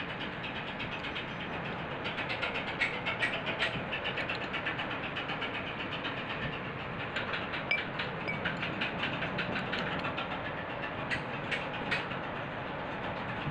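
Ratchet wrench clicking in quick runs of sharp clicks as it turns the housing bolts of an automotive A/C compressor, over a steady background hiss.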